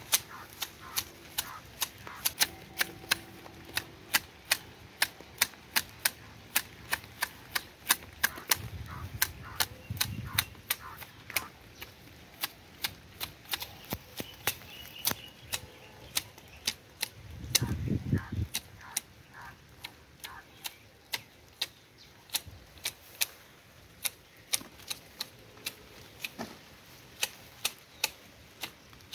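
Hand hedge shears clipping a ficus topiary: sharp blade snips in a quick, steady rhythm, a few a second, with a couple of short low rumbles between them.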